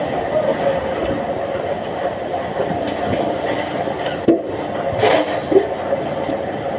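Heavy log-handling machinery running steadily, with a couple of sharp knocks about four and five seconds in.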